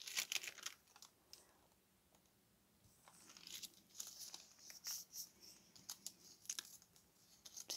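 Faint rustling and crinkling of paper cut-outs being picked up and laid down, in short scattered rustles with a pause in the middle.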